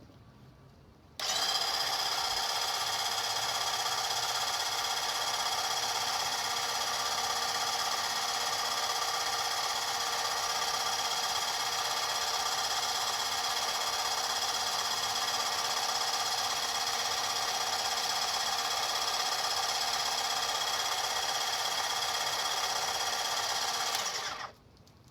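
Electric oil extractor pump running steadily with its hose down the dipstick tube, switched on about a second in and cut off abruptly near the end. It fails to pull any oil out, which the owner puts down to the oil level or the dipstick tube.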